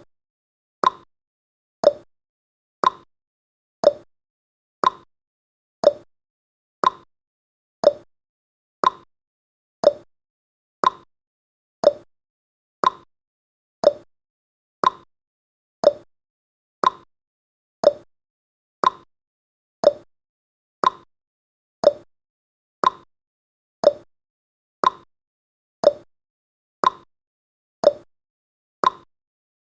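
Clock-style ticking sound effect of a countdown timer: one short, sharp tick every second, evenly spaced.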